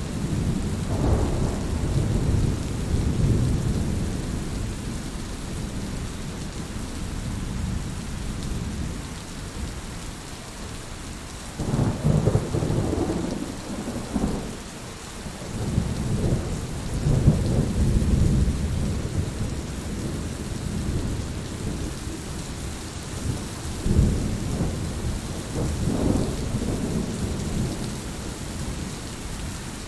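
Steady heavy rain hissing, with thunder rumbling in several rolling swells: near the start, about twelve seconds in, and again through the second half.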